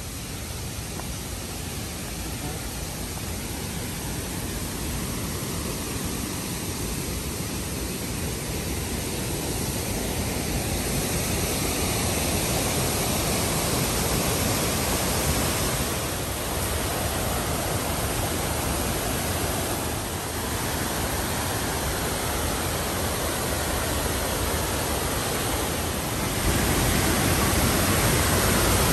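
Waterfall rushing over rock, a steady wash of water noise that grows gradually louder as the falls are approached, stepping up suddenly near the end.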